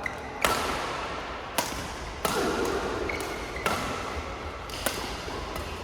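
Badminton rally: rackets striking the shuttlecock five times, a second or so apart, each hit a sharp crack.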